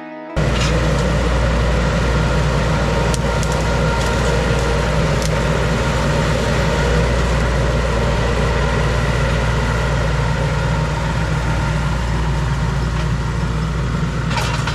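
Mini skid steer engine running steadily at working speed, with a few sharp cracks over it.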